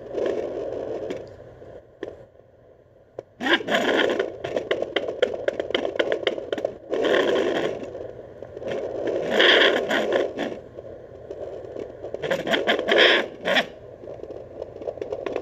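Handheld fetal doppler's speaker output as the probe is moved over a pregnant dog's belly, searching for the puppies' heartbeats: scraping, crackling static in several loud bursts, with a quieter spell about two seconds in.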